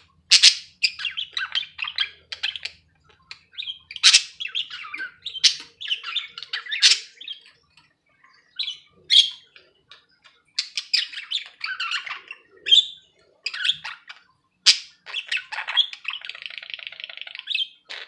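Budgerigars chattering: runs of sharp chirps and squawks with short pauses, ending in a longer, buzzy warble near the end.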